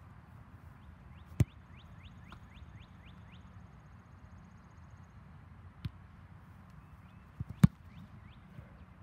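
Sharp thuds of a football being handled and kicked on artificial turf. Near the end, two quick light steps lead into the loudest thud, a punter's foot striking the ball. A bird gives a run of about nine quick rising chirps a second or so in.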